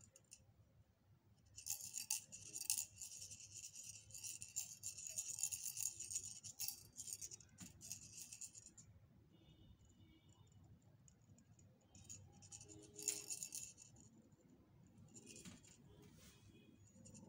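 Bunny-topped bubble wand toy rattling and jingling as it is shaken, in a long stretch of fast rattling from about two seconds in to about nine seconds, then shorter bursts later.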